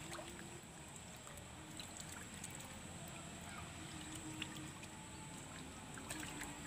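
Faint outdoor ambience: a low steady hiss with a thin, steady high-pitched tone and a few small clicks.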